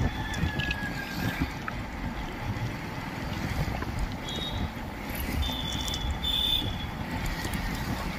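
Steady wind and road rumble of a vehicle moving along a highway, with short high-pitched vehicle horn beeps about four seconds in and again around five and a half to six and a half seconds.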